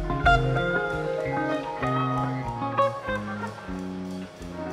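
Live band playing an instrumental passage: electric guitars, bass guitar, keyboard and drums.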